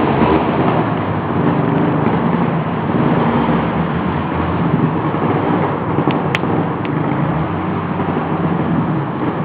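Off-road vehicle engine running steadily under way, with a few sharp clicks about six to seven seconds in.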